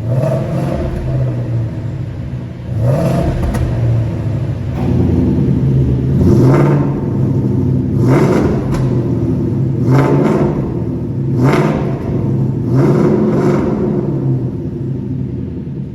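Ford Mustang Roush Stage 3's supercharged V8 through a Guerrilla Bypass exhaust with the mid muffler deleted. The engine is revved in about seven quick blips, settling back to a steady idle between them.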